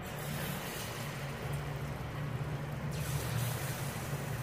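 Sweet banana pakoda batter sizzling as it is dropped into hot oil in a kadhai for deep-frying, the sizzle swelling again about three seconds in as another spoonful goes in, over a steady low hum.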